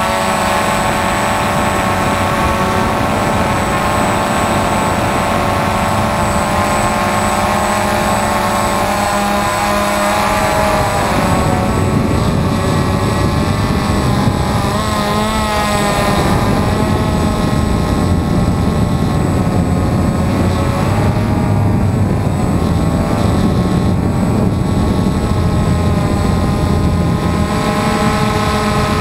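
DJI Phantom FC40 quadcopter's four motors and 9450 propellers buzzing in flight, heard from the camera carried on it: a steady whine of several close pitches that waver as the drone manoeuvres, over a constant rumble and hiss. From about eleven seconds in, the rumble grows louder and rougher and the pitches wobble more.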